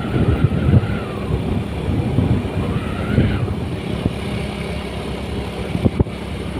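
Road vehicle running while on the move, with a rumble of road and engine noise and an engine note that rises and falls twice. A single sharp knock comes near the end.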